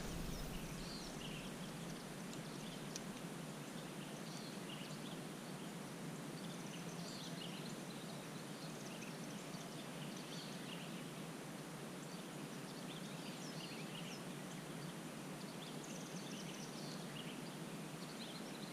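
Quiet outdoor ambience: a steady low hiss with faint, scattered short bird chirps throughout.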